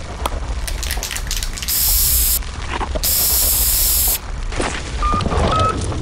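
Two hisses from an aerosol spray can, the first about half a second long and the second just over a second, with scattered clicks and knocks around them over a steady low rumble.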